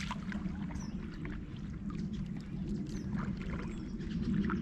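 Water lapping and sloshing against a canoe, with scattered light clicks and knocks from the boat and gear.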